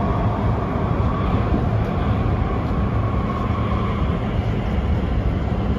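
Steady running noise inside a DKZ31 metro train car under way between stations: a low rumble of wheels on rail with a faint steady tone over it.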